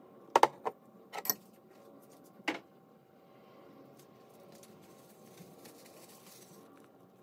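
A handful of sharp clinks and taps of small hard objects, several close together in the first second or so and a last one alone about two and a half seconds in, over a faint steady hum.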